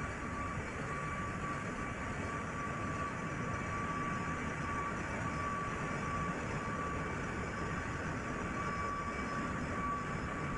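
Container ship engine-room machinery running steadily: a dense, even rumble and hiss with a high whine that swells and fades every second or two.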